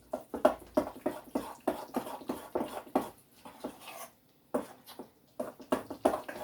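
A spoon stirring a thick, wet mixture of ricotta, egg and parsley in a bowl: quick squishing strokes, about four a second, with a short pause about two-thirds of the way through.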